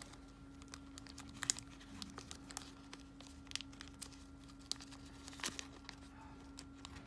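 Faint crinkling and rustling of a clear plastic packet and a paper-and-plastic autoclave pouch being handled, with scattered small clicks, over a steady low hum.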